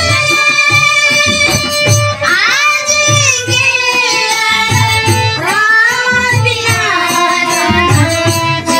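Newar devotional bhajan: a voice sings sliding, ornamented phrases over steady rhythmic hand-drum strokes, with held instrumental tones underneath.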